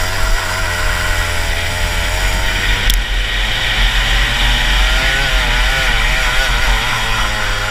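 Rotax Max 125cc single-cylinder two-stroke kart engine running hard, its pitch wavering through the corner and climbing along the straight. The kart is geared long (72/12) for a faster track, so the revs climb slowly out of the corners.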